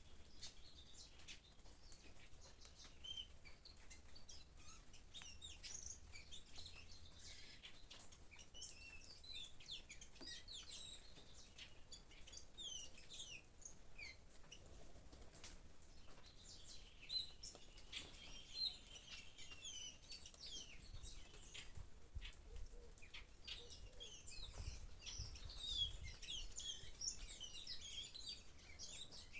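Many small birds chirping and twittering in short, quick calls, busiest in the second half, over faint pattering of rain.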